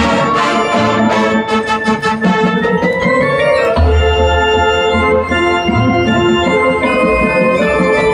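High school marching band playing sustained, organ-like chords. One part rises in pitch through the middle, and a deep bass note comes in about four seconds in.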